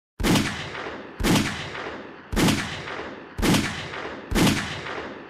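Five 9mm pistol shots from a short-barrelled pocket pistol, about a second apart, each ringing out and fading before the next.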